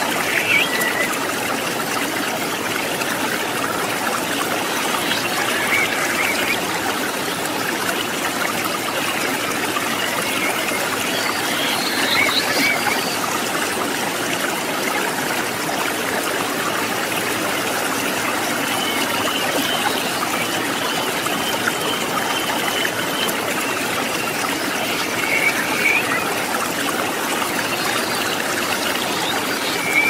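Shallow rocky river flowing over and between boulders: a steady, continuous rushing and babbling of water.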